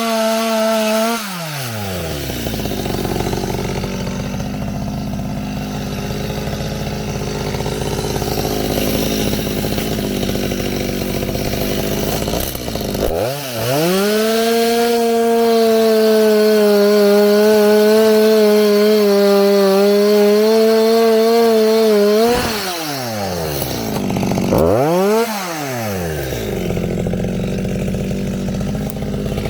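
Chainsaw engine dropping from high revs to idle at the start, idling, then revved to full throttle and held there for about nine seconds midway, its pitch wavering slightly, before falling back to idle. A brief throttle blip follows a couple of seconds later, then it idles again.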